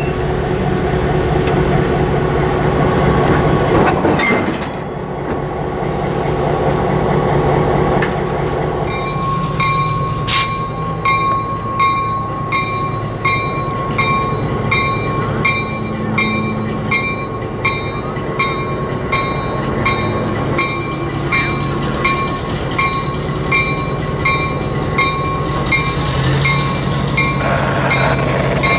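Train cars rolling past for the first few seconds. Then an SW900 diesel switcher locomotive's bell rings steadily, about one strike a second, over the low running of its diesel engine as it approaches slowly.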